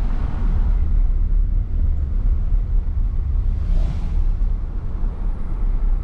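Hurricane Ida's wind buffeting the microphone: a loud, steady low rumble that swells and eases a little, with a brief hiss about four seconds in.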